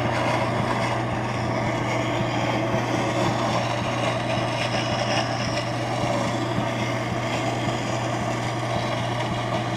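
Slow-speed wet grinder with its motor running and its whetstone wheel grinding a steel lathe gouge: a steady motor hum under an even, rough grinding hiss.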